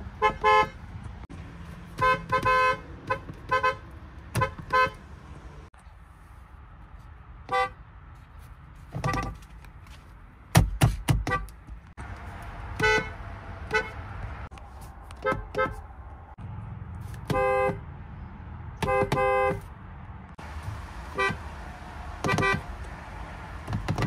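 Car horns of several Genesis cars, pressed from the steering-wheel pad in a string of short taps and brief honks, some in quick pairs or threes. A heavy thump sounds near the middle.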